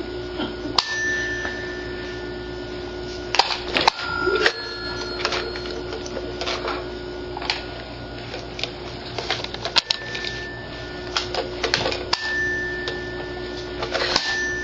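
Irregular scratchy clicks and scrapes, like a cat's claws catching and raking on a bristly doormat, in bursts with short pauses between, over a steady low hum.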